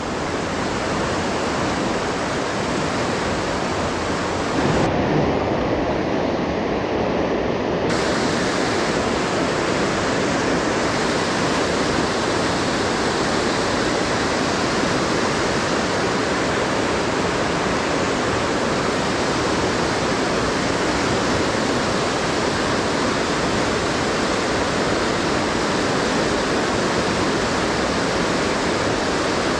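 Fast whitewater rapids rushing through a narrow rock gorge, a steady loud rush of water. The high hiss thins for a few seconds about five seconds in.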